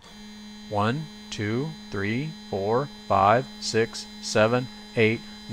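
Stepper motor on a bench-test linear stage running a slow 10-inch-per-minute feed move: a steady hum with fainter high tones above it.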